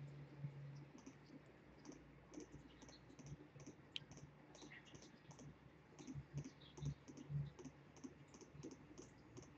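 Faint, quick clicking of a computer mouse, about two clicks a second, each click placing a new point of a fill outline in the digitizing program.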